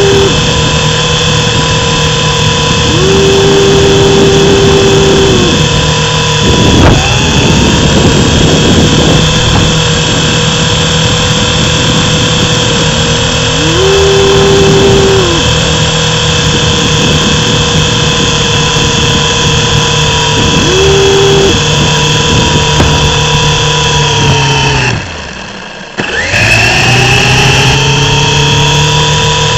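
The electric motors and rotors of a mini RC helicopter whine steadily in flight, with a lower tone cutting in and out several times. Near the end the whine drops away sharply for about a second, then spins back up to speed.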